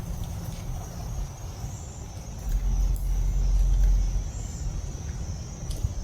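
A low rumble that swells louder for about two seconds in the middle, over a steady high insect trill, with a few faint clicks.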